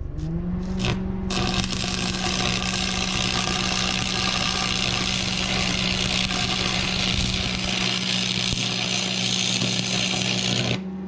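Angle grinder spinning up, then grinding steel with a steady high hiss over the motor's whine; the grinding stops near the end while the motor keeps running.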